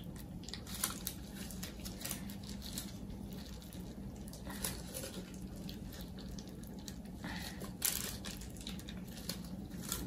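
Faint rustling and soft squishes of a plastic piping bag being squeezed by gloved hands, pushing whipped soap frosting out, with scattered small clicks.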